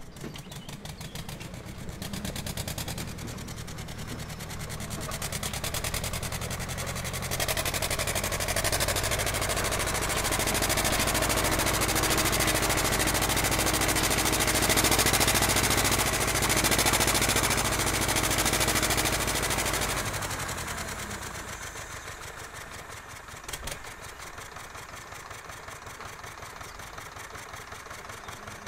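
Ursus C-328 tractor's two-cylinder air-cooled diesel engine running steadily as it pulls a loaded trailer past, growing louder over the first several seconds, loudest in the middle, then fading as it moves away.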